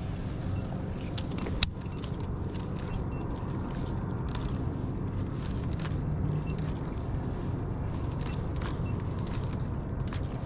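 A boat's motor runs steadily with a low hum, and light ticking sounds come and go above it. A single sharp click sounds a little over a second and a half in.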